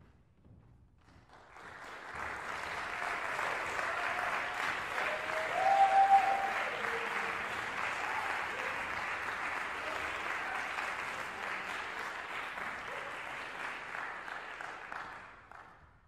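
Audience applauding, swelling in over the first couple of seconds and dying away near the end, with a brief cheer about six seconds in.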